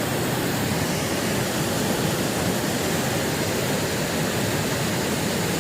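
Dudhsagar waterfall rushing: a steady, unbroken noise of falling water.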